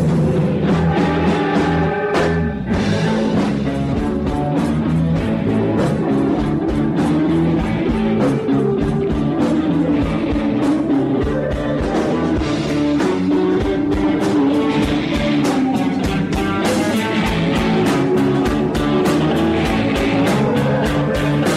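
Live blues-rock band playing: electric guitars over a drum kit keeping a steady beat.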